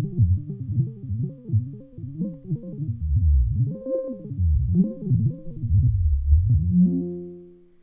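Moog Minitaur analog monophonic bass synthesizer playing a quick pattern of bass notes, each note sweeping up and down. About seven seconds in it settles on one held note that fades out.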